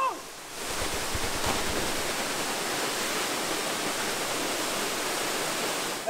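A short shout with a falling pitch as the jumper leaves the cliff edge, then a steady rush of falling water, typical of a waterfall.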